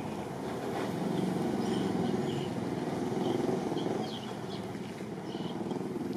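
Low rumble of a passing motor vehicle, swelling from about a second in and easing off after about four seconds, with a few short high chirps over it.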